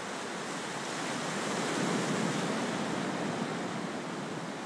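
Soft rushing ocean surf, a gentle swell of waves that builds and then eases off.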